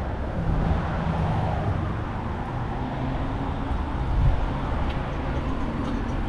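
Street traffic: motor vehicles running on the road, a steady low noise with the hum of an engine close by.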